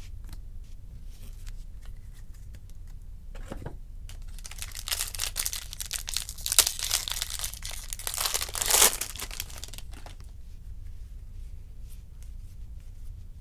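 Foil wrapper of a trading-card pack being torn open and crinkled, several seconds of crackling, loudest twice near the middle, with light ticks of cards being handled before and after.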